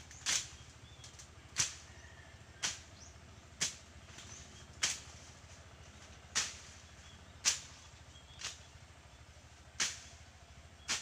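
A hand blade slashing through weeds and grass in about ten sharp swishing strokes, roughly one a second.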